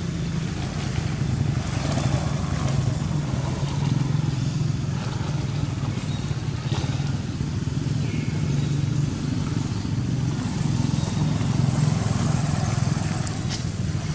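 Steady low motor rumble throughout, with a few faint clicks.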